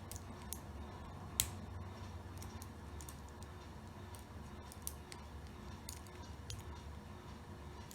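Faint metallic clicks and light scraping of a homemade pick and tensioner working the wafers inside an old Taylor cabinet wafer lock, with one sharper click about a second and a half in and a few smaller ones scattered after.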